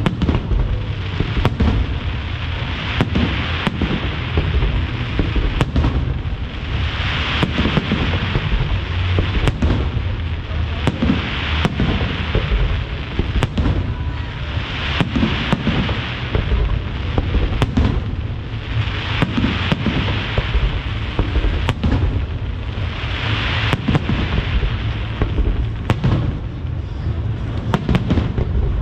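Aerial firework shells bursting in quick succession, a sharp bang every second or so over a steady low rumble, with crackling that swells every couple of seconds.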